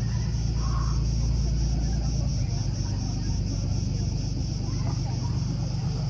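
Steady low drone of a motorboat engine in the harbour, with cicadas buzzing in a high, pulsing band over it.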